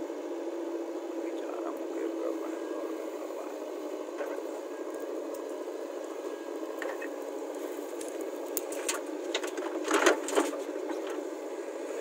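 JCB 3DX backhoe loader's diesel engine running steadily while it digs and lifts a bucket of soil, with a cluster of sharp knocks late on, the loudest about ten seconds in.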